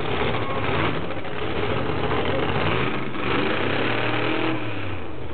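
Drag race cars' engines running loud at the starting line, a steady roar with some revving and a brief rise in pitch about three seconds in.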